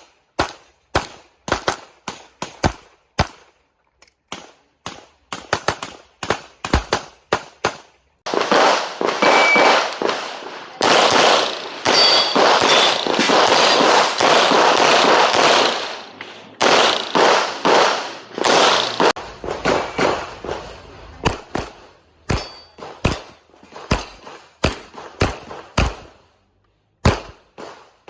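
Pistol shots fired in quick strings, some followed by a short metallic ring. In the middle stretch the sound thickens into a dense, almost continuous noise before separate shots resume.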